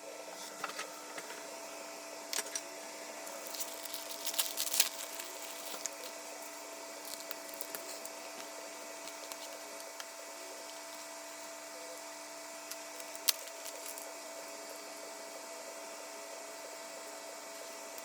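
Small clicks and taps of parts and tools being handled at a workbench, over a steady machine hum with a faint whine. The taps cluster in the first few seconds, and one sharp click, the loudest, comes about thirteen seconds in.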